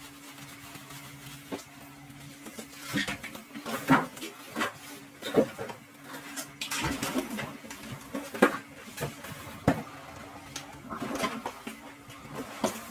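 Irregular knocks and clatters of a chair being gripped, pulled out and shifted behind a table, with clothing rustling between the knocks, beginning about three seconds in.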